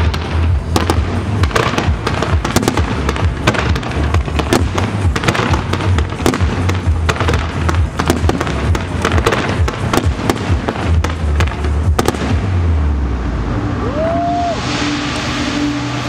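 Fireworks display: rapid bangs and crackling of shells bursting overhead, dense for about twelve seconds, then thinning out into a steady hiss.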